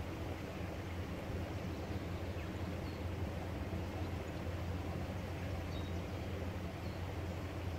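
Steady low outdoor rumble with no distinct source, with a few faint, brief high chirps scattered through it.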